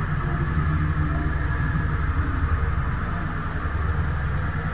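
Wind buffeting the microphone of a helmet-mounted camera aboard a sailing dinghy, a steady low rumble.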